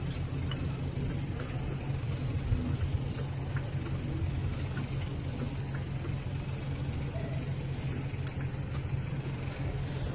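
Vehicle engine idling steadily, with a few faint clicks over it.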